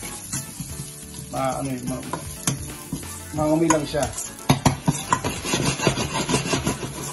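Minced garlic sizzling gently in oil in a stainless steel pot while a large metal spoon stirs it, scraping and clinking against the pot's sides and bottom. The spoon clicks come thickest in the second half.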